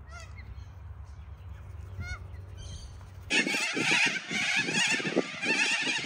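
A few short calls from long-billed corellas over a low rumble. A little over three seconds in, a sudden cut brings in a large flock of white cockatoos screeching, many calls overlapping, much louder.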